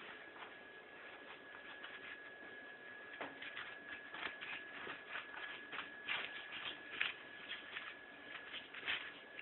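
Snow crunching and scratching in quick, irregular bursts as a ferret scrabbles and digs in it, busier from about three seconds in. A faint steady high whine runs underneath.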